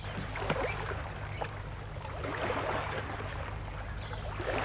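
River ambience sound effect: moving, lapping water that swells and eases every couple of seconds over a steady low hum.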